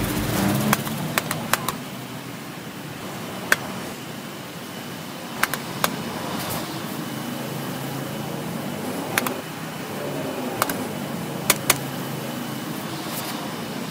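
Public payphone being used: the handset taken up and the metal keypad buttons pressed, a dozen or so sharp clicks spread unevenly over a steady background hiss.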